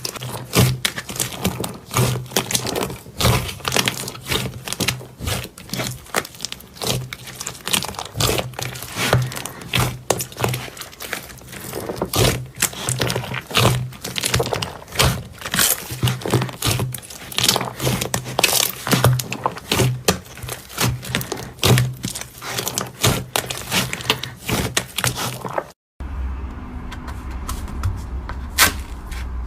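Slime being squeezed and pressed by hand, giving a dense run of quick pops and crackles over background music. About 26 s in the sound cuts out briefly and gives way to a steady low hum with sparser clicks.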